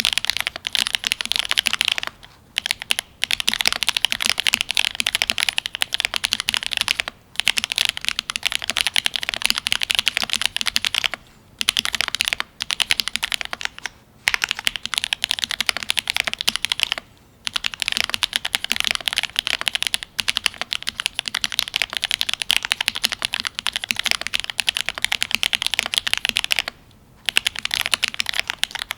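Fast, continuous typing on a Cyberboard R3 mechanical keyboard with lubed Gateron Ink Black linear switches, an aluminium plate and GMK keycaps. The rapid keystroke clicks break off for short pauses every few seconds.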